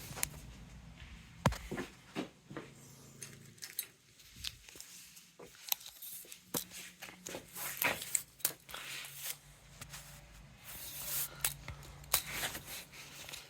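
Hands handling small parts: scattered clicks, taps and rustling, over a faint steady low hum.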